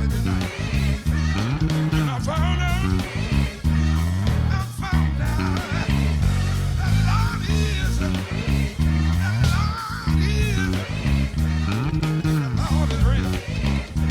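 Instrument demo music: a prominent low line of plucked notes with slides, and higher melodic lines bending above it.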